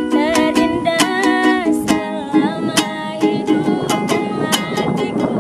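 Ukulele strummed in a steady rhythm accompanying a woman singing; her held, wavering notes are clearest over the first couple of seconds, after which the strumming comes more to the fore.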